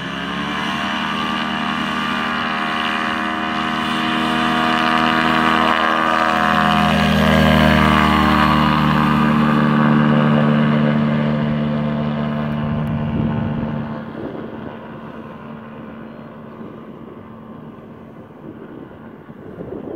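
Aerolite 103 ultralight's engine and propeller at full takeoff power, growing louder as the plane lifts off and climbs past, then fading as it flies away.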